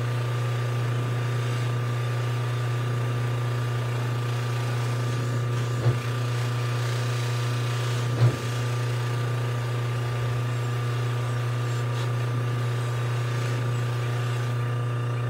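Electric buffer motor running steadily with a low hum and a faint steady whine, its spinning buffing wheel polishing the crown of a forged aluminium Wiseco piston held against it. Two brief louder bumps come about two seconds apart near the middle.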